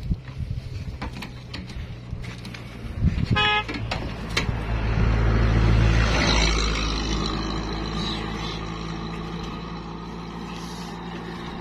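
A vehicle horn toots briefly about three seconds in, then a vehicle passes with a low rumble that swells, is loudest around five to six seconds in and slowly fades, over a steady low engine hum.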